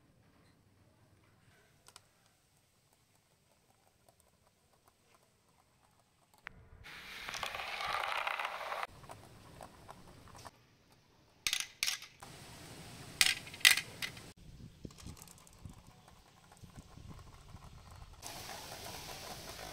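Glass marbles rolling down a wavy clear plastic-tube track on a board: a rolling rattle that starts about six seconds in, with two clusters of sharp clicks midway as marbles knock against each other and the track.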